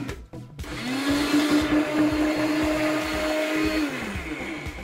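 Countertop blender (liquidiser) motor spinning up with a rising whine, running steadily for about three seconds, then winding down in pitch near the end. It is blending chunks of raw cauliflower, which it fails to turn into cauliflower rice.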